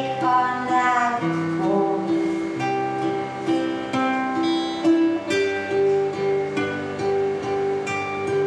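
Acoustic guitar playing an instrumental passage of a song, with picked and strummed notes and no voice.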